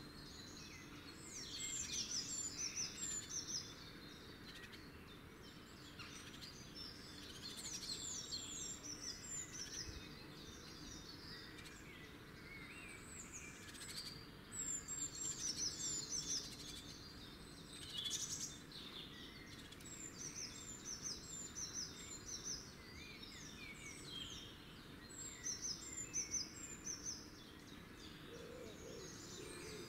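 Wild songbirds singing in repeated bursts of quick, falling high chirps over faint steady outdoor background noise; a low hooting call starts near the end.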